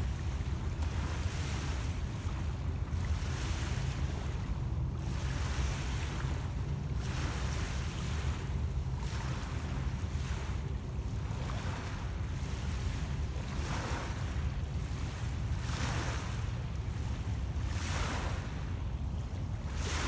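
Small lake waves lapping onto a pebble shore, a hissing wash about every two seconds, over a steady low rumble of wind on the microphone.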